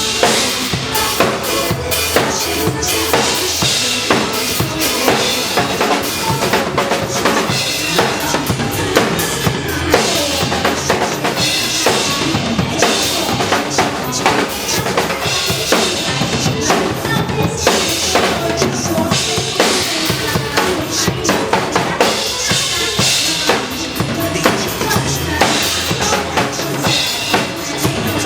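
Drum kit played live to a pop song, with kick drum, snare and cymbals keeping a driving beat over the song's backing music.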